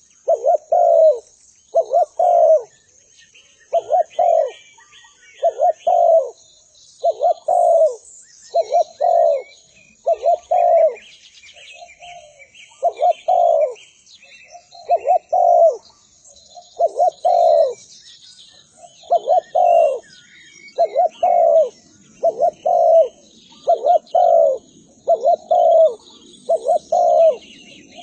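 Spotted dove (derkuku) cooing over and over, each phrase a short run of two or three low notes, repeated about every two seconds. Fainter high chirping of small birds sounds behind it.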